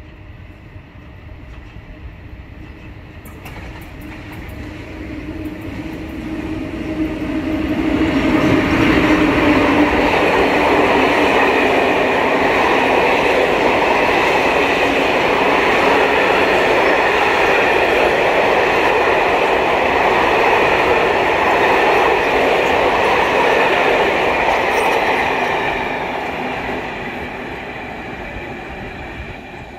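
Locomotive-hauled passenger train approaching along the platform, running past at speed and pulling away. The rumble of the train builds over the first several seconds and stays loud for about fifteen seconds while the coaches go by. It then fades as the train moves off.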